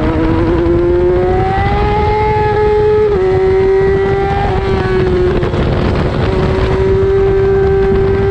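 Road-race motorcycle engine at high revs, heard from an onboard camera with heavy wind rush over it. The engine note climbs for the first couple of seconds, drops abruptly about three seconds in as the bike slows from about 110 mph, then holds and slowly rises again.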